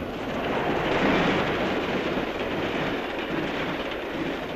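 Steam locomotive and passenger train rushing past at speed while scooping water from the track trough between the rails: a loud, even rushing noise that swells about a second in and fades toward the end.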